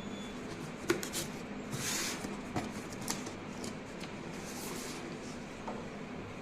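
Hands handling small lock parts and their packaging: a few light clicks and knocks, with two short rustles, over a steady low hum.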